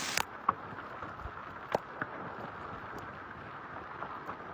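Hailstones striking hard surfaces: a few sharp, scattered knocks, loudest about half a second and just under two seconds in, over a steady hiss of falling rain and hail. A louder downpour cuts off abruptly just after the start.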